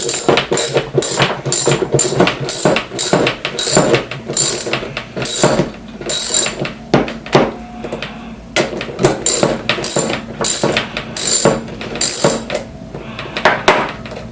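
Hand tool working the axle nut off a roller-skate wheel, making a run of sharp metallic clicks about two a second, with a short lull partway through.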